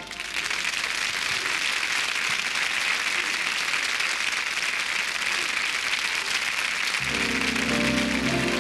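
Studio audience applauding after the music stops. About seven seconds in, music starts up again under the applause.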